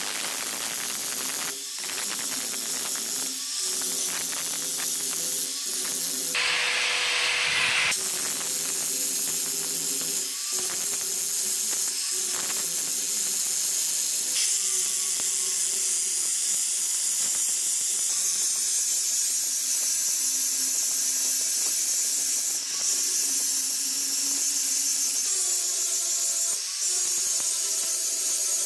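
Handheld angle grinder running, its abrasive disc grinding the steel edge of a butcher's meat cleaver: a steady high-pitched grinding hiss over the motor's whine, dipping briefly a few times.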